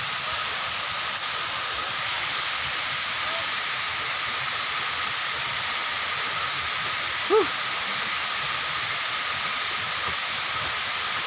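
Waterfall rushing as a steady, even hiss of falling water. About seven seconds in comes one short rising-and-falling cry.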